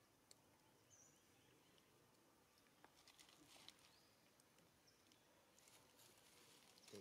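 Near silence: faint outdoor ambience with a few soft, short high chirps and scattered small clicks.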